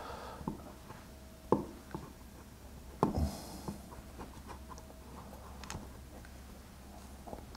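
Wooden cabinet panels handled and fitted together by hand: scattered light knocks and taps with some rubbing and scraping, the two clearest knocks about a second and a half and three seconds in, the second the loudest.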